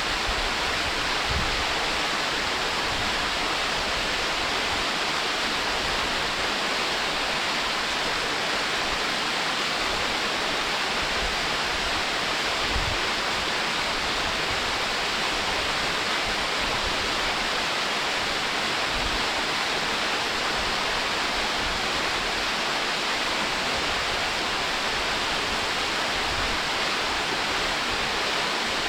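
Waterfall: water falling over rock and splashing into the pool below, a steady, even rush with no pauses.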